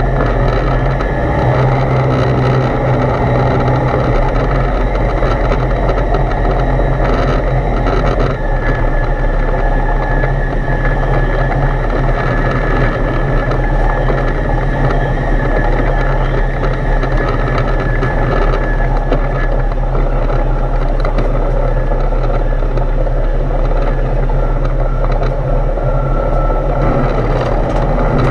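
Foxbat A22LS light aircraft's engine and propeller running, a steady drone with rushing airflow heard inside the cockpit. The low note changes a few seconds in.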